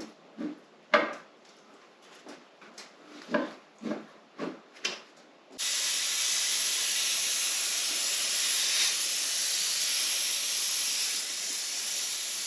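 Several light knocks and clicks, then a steady hiss that starts abruptly about five and a half seconds in, lasts about seven seconds and cuts off suddenly.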